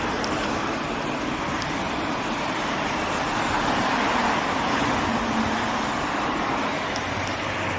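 Road traffic noise, with a vehicle passing: the tyre and engine noise swells about halfway through and then fades.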